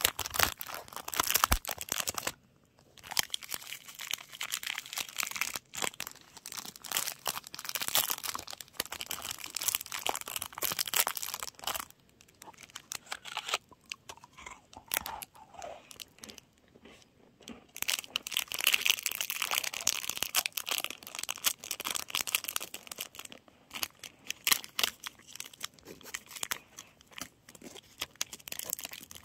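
Clear plastic snack wrapper being handled and torn open, crinkling and crackling in bursts with short pauses.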